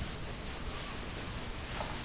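Faint, even hiss of a metal IASTM soft-tissue tool being scraped over the skin of the upper back and shoulder, with no separate strokes standing out.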